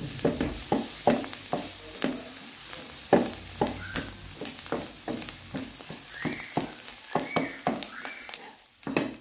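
Wooden spoon stirring and scraping minced chicken and vegetables around a non-stick wok, in quick repeated strokes about two to three a second, over a steady sizzle of frying.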